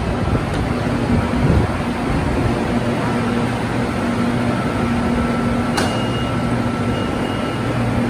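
A Skytrain EMU-B1 electric train standing at the platform after arriving, its equipment giving a steady hum with two held tones. There is a sharp click about six seconds in, shortly before the doors open.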